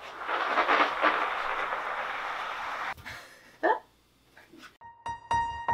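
A steady rushing, rustling noise for about three seconds, then a couple of short faint sounds. Near the end, lively silent-film-style piano music starts with quick repeated notes.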